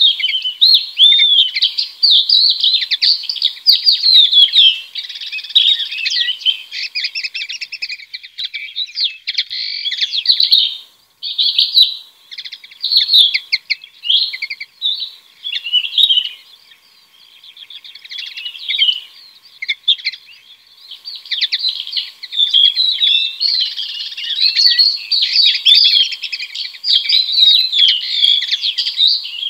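Songbirds singing: a continuous, varied stream of quick chirps, twitters and short warbled phrases, dropping out briefly a couple of times.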